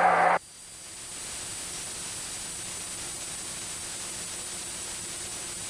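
A short burst of radio static that cuts off abruptly just after the start, then a steady hiss with a faint low hum from the cockpit intercom audio feed.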